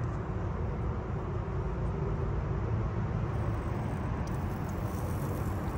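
Steady low rushing noise of a gas grill's lit burners.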